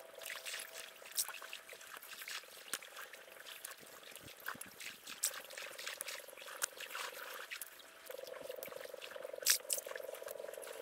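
Light clicks and taps of a knife scoring slits into a raw mackerel. Under them runs a faint, steady trilling hum that grows louder about eight seconds in.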